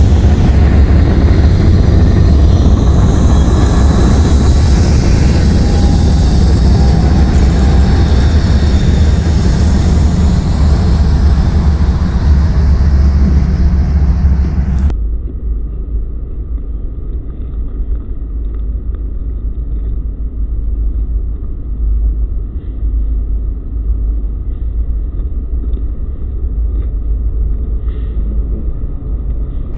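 BNSF GE diesel-electric freight locomotives running past at close range: a loud, deep engine rumble with wheel and rail noise. About halfway through it cuts to a quieter, muffled low rumble of a locomotive approaching from a distance.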